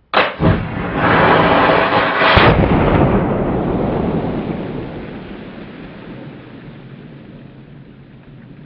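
A Traditions PA Pellet flintlock muzzleloader firing: two sharp cracks close together right at the start, then a loud rolling rumble that holds for a second or two and dies away slowly over several seconds.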